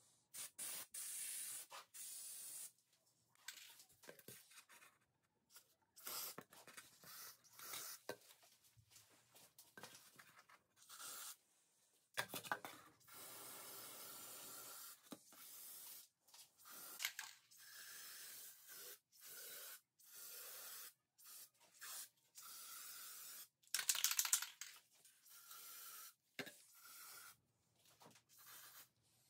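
Aerosol can of metallic spray paint hissing in many short bursts with brief pauses between, the loudest burst about three quarters of the way through.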